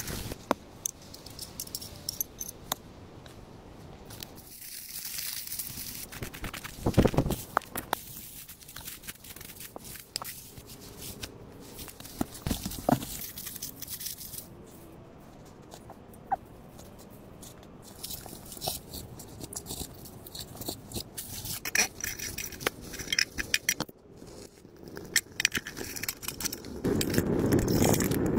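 Camp-cooking handling sounds: a utensil scraping and clicking in a pan over a wood fire, with scattered small knocks and rustles. Near the end a louder steady rushing sets in, fitting water poured from a plastic bottle into a kettle on a small wood stove.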